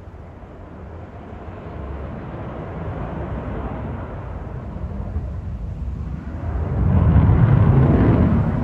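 Eurofighter Typhoon's twin Eurojet EJ200 turbofan engines: a deep jet rumble that builds steadily, loudest about seven seconds in, then eases slightly.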